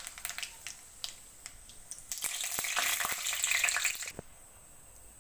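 Mustard seeds crackling in hot mustard oil, with scattered sharp pops and a louder spell of sizzling between about two and four seconds in that then dies down.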